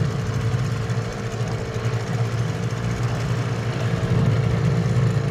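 Small boat outboard motor idling with a steady hum.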